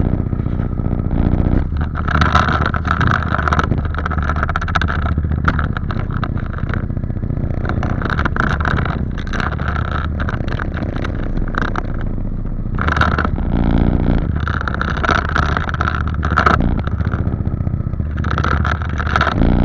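Apollo dirt bike engine running at a steady idle, with several short bursts of throttle.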